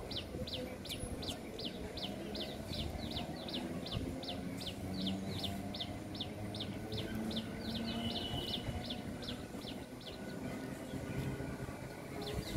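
A bird's rapid, evenly repeated high chirps, about four or five a second, each dropping in pitch, over the low rumble of an electric local train (EMU) running past in the distance.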